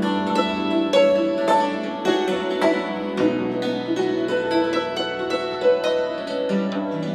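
Background music: a melody of quickly picked string notes, several to the second, over held low notes.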